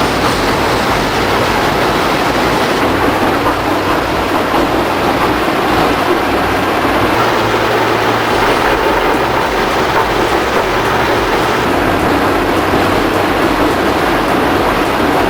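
Heavy processing machinery running under load, with a loud, continuous rattling and grinding noise over a low hum.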